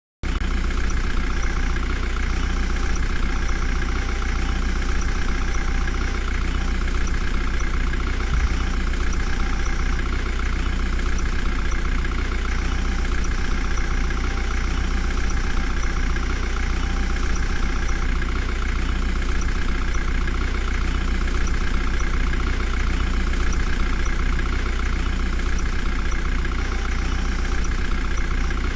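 A JCB 3DX backhoe loader's diesel engine idling steadily, with a deep, even low rumble that does not rev up or down.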